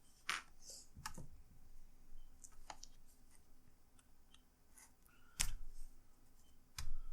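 Scattered sharp clicks and light taps as a replacement screen is handled and pressed into an Asus Q525U laptop's lid, with two louder knocks about five and a half and seven seconds in. The screen is not yet seating.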